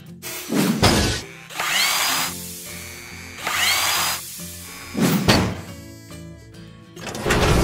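Sound effects for an animated logo intro over music: two heavy mechanical thuds about four seconds apart, and between them two hissing bursts, each with a rising whine, matching a robotic arm working and throwing sparks.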